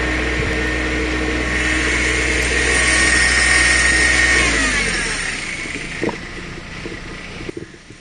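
An 18 hp compact tractor's engine running steadily at working speed while it pulls a stump through a block-and-tackle rig. About halfway through, its speed falls away and it winds down. A single knock and light rustling follow.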